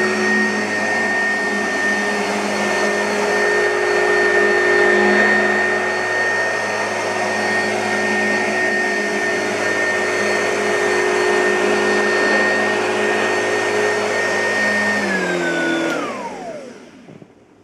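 2006 Oreck XL2 upright vacuum cleaner running steadily with a high-pitched whine, then switched off about 15 seconds in, its motor winding down and the whine falling in pitch until it fades.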